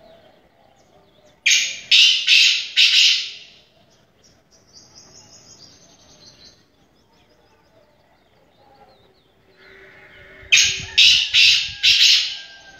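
Caged francolin (tetar) calling loudly in two bursts of four quick, strident notes, one about a second and a half in and one near the end. Fainter chirps come between the bursts.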